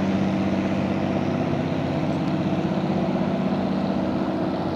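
Engine of the Ullswater passenger boat Western Belle (one of the lake's "steamers") running steadily as it passes: a low, even hum with a fast regular throb.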